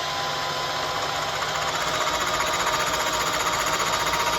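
Milling machine running with its cutter taking a light 0.010-inch cut across the angled face of a metal workpiece, fed past the cutter by a drill motor driving the knee. The sound grows louder about two seconds in, with a fast, even chatter as the cutter bites.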